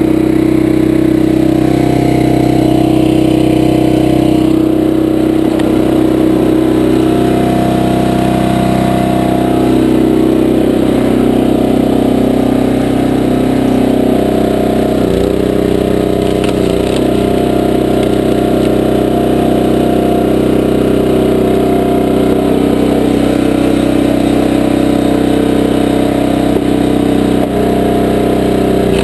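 Small gas engine of a 20-ton Powerhorse horizontal dual-split log splitter running steadily while it splits logs, its note shifting a few times.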